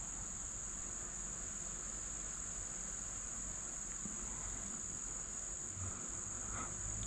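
Insects trilling in a continuous high-pitched chorus that holds steady without a break.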